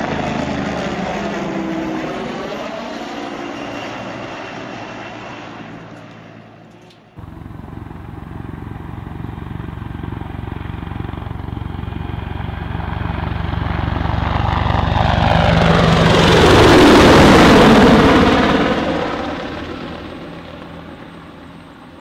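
Helicopter rotor and engine sound fading away, then cut off about seven seconds in. A second helicopter follows with a steady rotor beat: it approaches, is loudest a little past two-thirds of the way through, and fades as it moves away.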